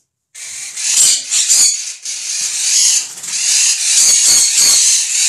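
Loud rustling and crinkling of a plastic bag of parrot food being handled, with a few knocks mixed in.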